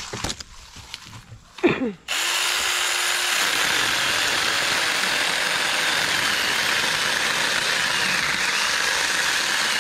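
Saker mini cordless electric chainsaw, with a 4-inch bar and a 20V lithium battery, starts up about two seconds in with a brief steady motor whine. It then runs steadily as its chain cuts through an overhead tree limb. A few handling knocks come before it starts.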